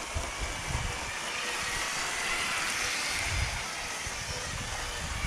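A Lego 9V train running on its plastic track: a steady hiss and faint motor whine that swell toward the middle and ease off, over irregular low rumbles.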